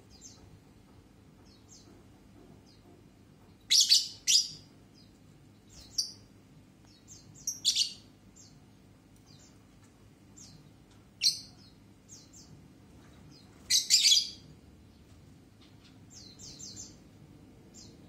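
Lovebirds chirping: short, sharp, high-pitched calls every few seconds. The loudest come in quick pairs about 4 and 14 seconds in, with fainter chirps between.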